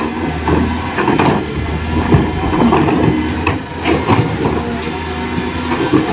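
Small electric motors and plastic gears of an RC toy excavator whirring over a steady low hum, with irregular clicks and scraping throughout.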